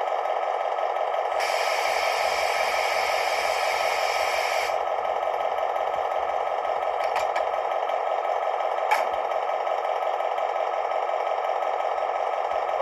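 A Märklin DB class 218 model diesel locomotive's ESU sound decoder plays a steady diesel engine sound through its small onboard speaker. A hiss is laid over it from about a second and a half in until nearly five seconds, and there is a single click near nine seconds.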